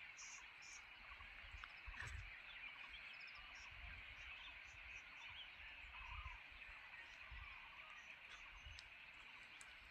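Faint steady chorus of chirping animals, with scattered short, high chirps over it and occasional low rumbles.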